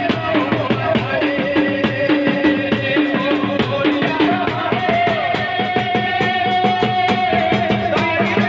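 Folk music with a fast, steady drum beat under a melodic line; a long note is held from about halfway through to near the end.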